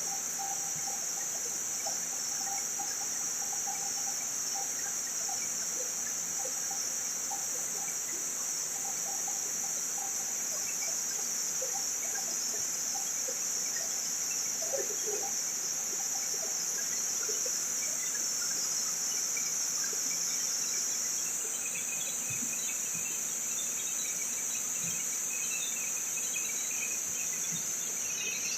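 Steady, high-pitched chorus of insects, crickets or similar, buzzing without a break, with faint scattered chirps beneath it.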